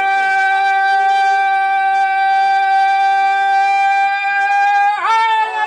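A man's singing voice holding one long, high, steady note for about five seconds, with a dip and wobble in pitch as the note breaks off near the end.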